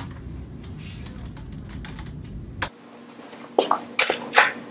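Typing on a computer keyboard: soft, quick key clicks over a low room hum. After about two and a half seconds the sound cuts off, and a few sharp clicks and knocks follow near the end.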